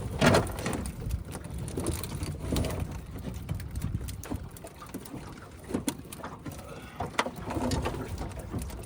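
Splashing and knocks against a boat as a fishing net full of catfish is worked at the side, with a sharp knock just after the start and two more later on. Wind rumbles on the microphone throughout.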